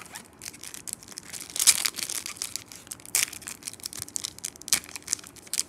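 Foil Pokémon booster pack wrapper crinkling and being torn open by hand: a dense run of sharp crackles, loudest about a second and a half in.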